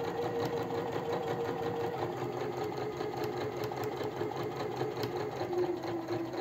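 Electric domestic sewing machine running steadily and sewing a long straight stitch through layered fabric, its motor dropping slightly in pitch about two seconds in.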